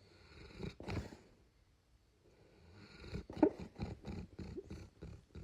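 A cat purring, in two stretches with a pause partway through.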